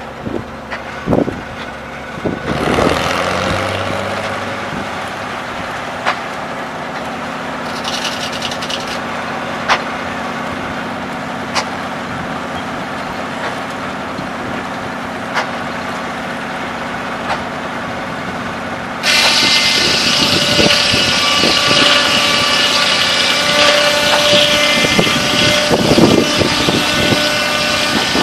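Circular sawmill running: a steady engine drone with the big blade spinning, with a few sharp knocks. About two-thirds of the way in it suddenly gets louder and turns into a high, ringing whine as the blade cuts into the log.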